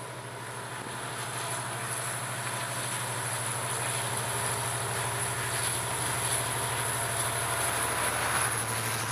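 Irish Rail 071 class diesel-electric locomotive, its EMD 12-cylinder two-stroke engine working under load as it hauls a laden timber train, growing steadily louder as it approaches and passes close by. Near the end the loaded log wagons rumble past on the rails.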